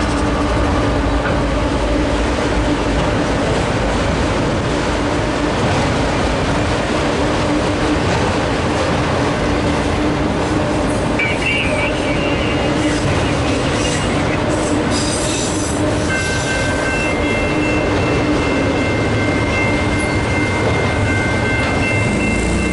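Empty autorack freight cars rolling past on steel rails with a steady, loud running noise. A brief high squeal comes about halfway through, and from about two-thirds of the way in a steady high-pitched wheel squeal of several tones joins it and holds.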